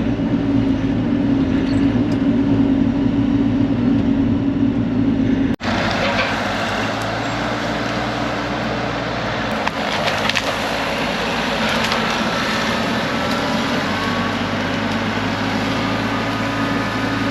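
Bobcat E42 mini excavator's diesel engine running steadily under load while it works a tree loose. The sound drops out for an instant about five and a half seconds in, and wood cracks and splinters a few times around ten seconds in.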